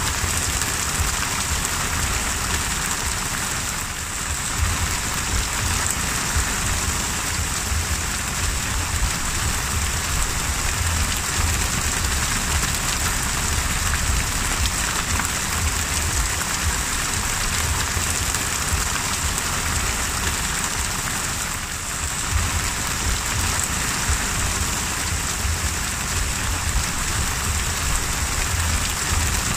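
Heavy rain pouring onto open sea: a steady, dense hiss of countless drops striking the water, with a low rumble underneath.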